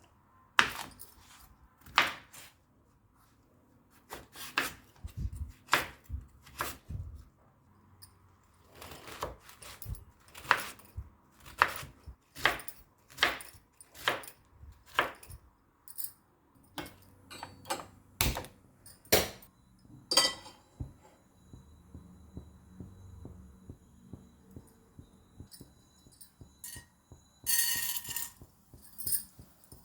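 Irregular sharp knocks and clatters of kitchen utensils on hard surfaces, some ringing briefly, with a short rushing noise near the end.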